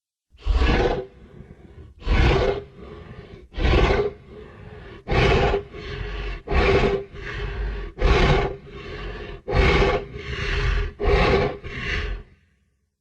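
Creature sound effect for Daeodon, the prehistoric giant boar: a series of about eight loud calls, roughly one every second and a half, with quieter calls between them.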